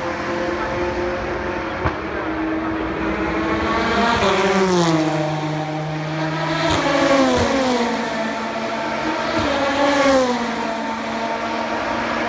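Endurance race cars going by at speed, one after another. The engine note of each falls in pitch as it passes, about three times, over the steady drone of other engines.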